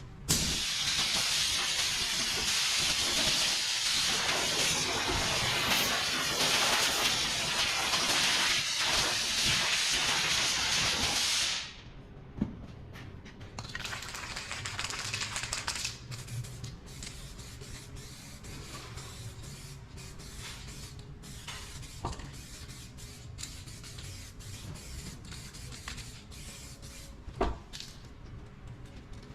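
Compressed air spraying with a steady loud hiss for about eleven seconds, cutting off suddenly, then a second, shorter and quieter burst a couple of seconds later, followed by faint clicks and handling sounds.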